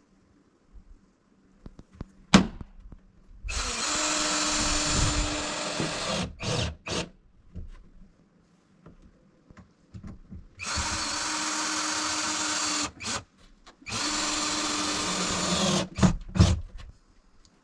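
Power drill driving screws: three long steady runs, each ended by a few short trigger bursts as the screw seats. A sharp knock about two seconds in.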